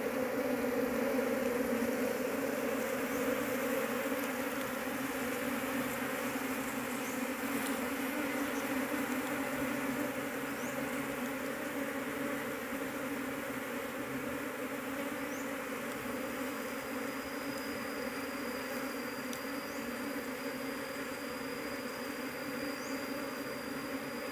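A mass of Asian honey bees (Apis cerana) buzzing steadily as a hand digs through their nest cluster: a dense, unbroken hum. About two-thirds of the way in, a thin high steady tone joins it.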